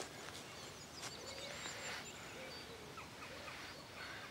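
Small birds chirping and singing faintly over quiet outdoor background noise, with a soft rustle or two.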